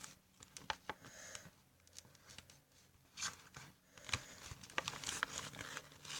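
Paper and sellotape being handled: faint rustling and crinkling with small irregular ticks, busier from about three seconds in.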